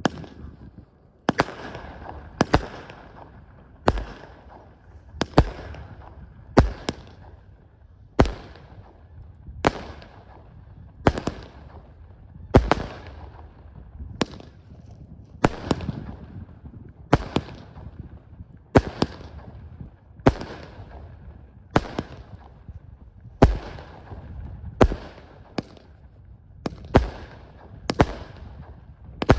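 F2 consumer fireworks going off in a steady series of about twenty sharp bangs, roughly one every second and a half, each followed by a short fading tail.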